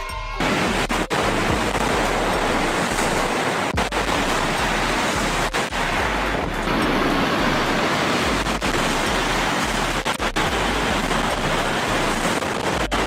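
High-speed bullet train running, a steady loud rushing noise, cut off for an instant several times.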